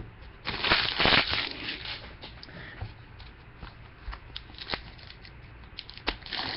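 Cardboard trading cards being handled and flipped through by hand: a louder rustling stretch in the first second and a half, then scattered light clicks and slides of card against card.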